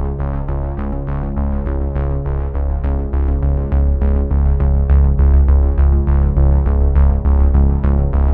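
Background music: synthesizer chords held over a strong bass with a steady beat.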